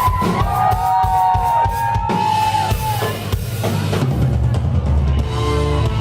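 Live rock band playing an instrumental passage: drum kit with bass drum and snare hits under held high notes, with bass and chords coming in about four seconds in.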